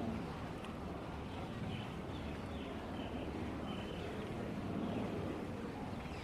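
Outdoor ambience: a steady low rumble of background noise with a few short, high chirps scattered through it.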